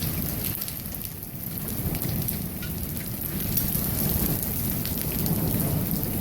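Torrential rain and hailstones pelting down in a severe thunderstorm, with sharp scattered ticks of hail strikes over the steady rush of rain. Under it a low rumble of thunder swells after about a second and a half.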